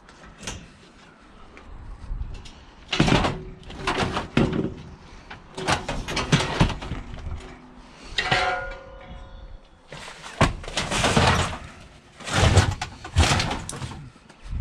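Scrap metal being handled and loaded into a van: a run of clanks, bumps and scrapes, with a short squealing scrape about eight seconds in.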